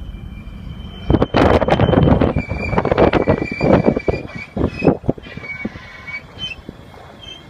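A 1993 Toyota Land Cruiser making a high-pitched squeak, of unknown cause. Loud knocks and rattles run over it from about a second in until about five seconds in.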